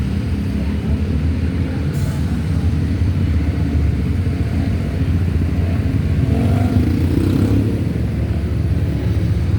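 Bus engine running with a steady low rumble, swelling slightly about seven seconds in; no horn sounds.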